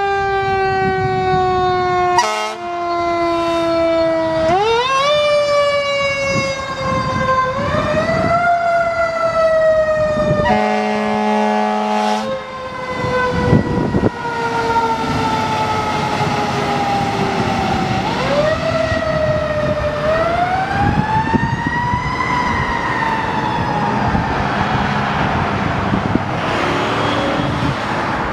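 Fire engine siren winding slowly down in pitch and being spun back up several times, the slow coast-down of a mechanical siren, with a long air horn blast about ten seconds in. The truck's engine passes close by in the middle, and near the end the siren fades into traffic.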